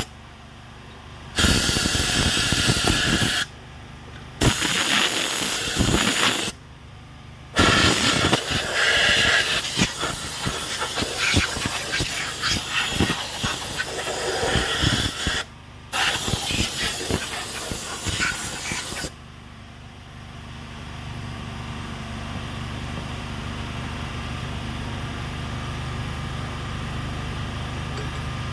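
Pressure washer jet spraying water onto a bare engine block in four long bursts as the trigger is pulled and let go, with a generator running underneath. From about two-thirds of the way in the spraying stops and only a steady machine hum goes on.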